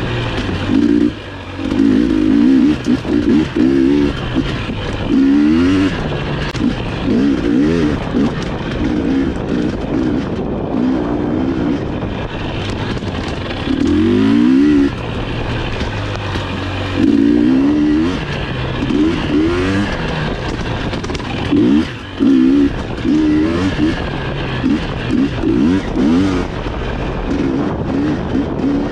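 GasGas EX250 two-stroke dirt bike engine being ridden, revving up sharply and dropping off again every second or two as the throttle is worked.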